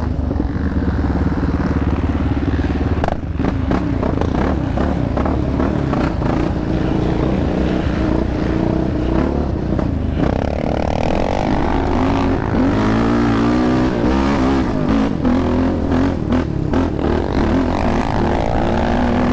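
Yamaha Raptor 700 sport quad's single-cylinder engine running under changing throttle, its pitch rising and falling, with rattles and knocks from the machine over rough trail.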